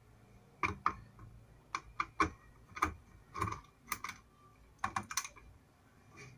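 Irregular clicks and taps, about a dozen, from hands handling wires and parts inside the opened plastic casing of an induction cooktop.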